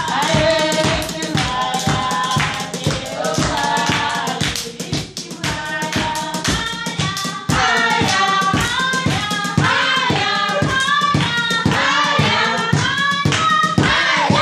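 A group of voices singing a worship song together, with steady rhythmic hand clapping.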